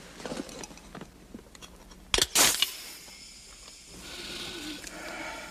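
A few light clicks, then a pull-tab can cracked open about two seconds in with a loud sharp pop and hiss, the loudest sound here. From about four seconds in there is a steadier breathy hiss as air is drawn in from the can.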